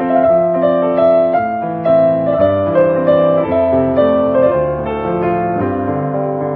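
Background piano music: a melody of single notes over lower held notes.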